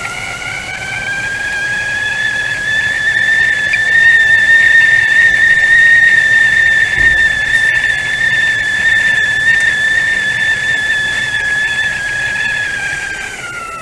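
Tea kettle whistling at the boil: a steady, shrill two-tone whistle that rises a little in pitch and grows louder over the first few seconds, then near the end slides down in pitch and fades.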